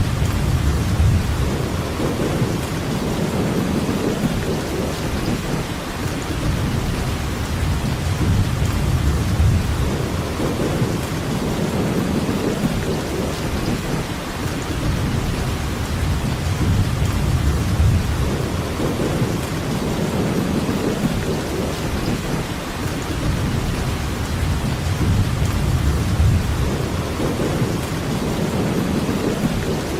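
Steady heavy rainfall, an even hiss, under a low rumble that swells and fades every several seconds.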